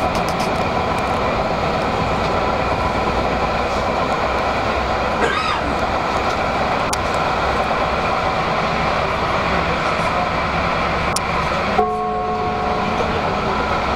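Electric tram running at speed, heard from just behind the driver's cab: a steady rumble of wheels on rail under a hum from the traction drive, with a brief squeal about five seconds in. Near the end a set of steady tones sounds for about a second.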